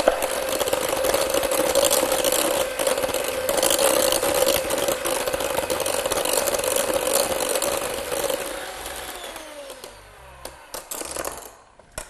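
Electric hand mixer running steadily, its beaters whisking eggs into creamed butter in a glass bowl. About eight or nine seconds in it is switched off and the motor winds down with a falling whine, followed by a few light clicks.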